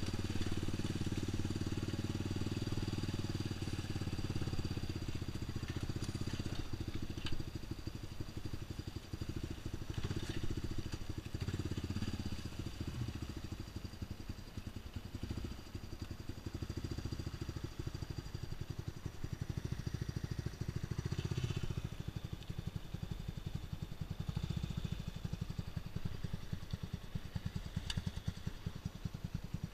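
ATV engine running steadily under throttle, then dropping to a low, pulsing idle-speed putter about seven seconds in as the quad creeps slowly into shallow floodwater. A few faint knocks and clicks are heard along the way.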